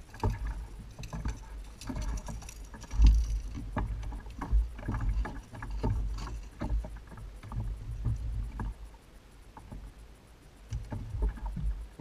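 Water slapping against the hull of a Hobie Pro Angler 14 kayak with a low rumble of wind, and scattered knocks and clicks of gear being handled on board; the loudest thump comes about three seconds in.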